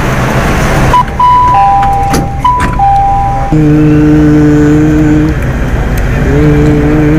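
An electronic two-note chime, a higher and a lower tone overlapping, sounds twice starting about a second in. Then a steady low tone starts, stops about two seconds later and comes back near the end, all over a continuous rumble of the metro.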